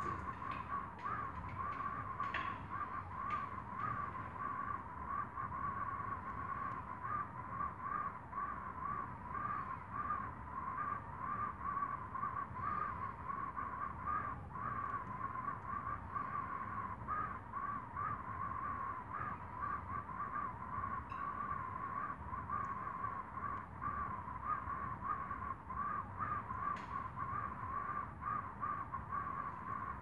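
Wood fire burning in a fireplace, with scattered small crackles over a steady, wavering mid-pitched tone.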